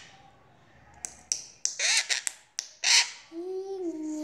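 A pet green parakeet giving several short, harsh squawks with sharp clicks between them, then a steady held note near the end.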